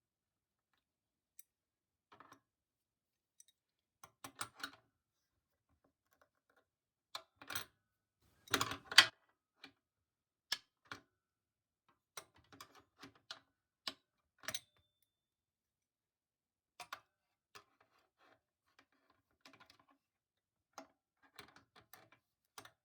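Irregular clicks and light knocks of hands and tools working at the bolts of an industrial sewing machine's motor mount, with the loudest, a short clatter, about nine seconds in.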